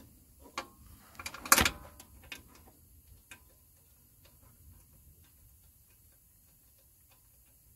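Light metallic clicks and taps as the oil drain plug, fitted with a new crush washer, is threaded back into the engine by hand. They are loudest about a second and a half in, then die away to near quiet.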